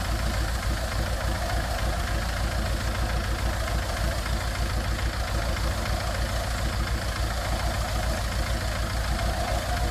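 Small tractor engine idling steadily with a fast, even chugging knock, running a trailed round-bale wrapper.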